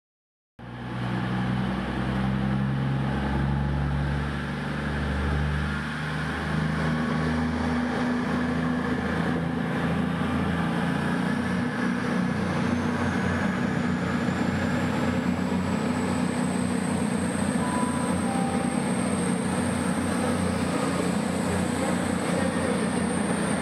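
Voyager diesel-electric trains' engines running steadily at the platform. A high whine rises about halfway through and then holds as the train pulls away.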